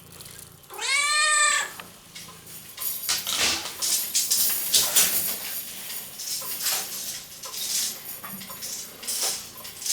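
A domestic cat meows once near the start: a single call about a second long that rises and falls in pitch, asking for a treat. After it comes a run of scattered clicks and light clatter.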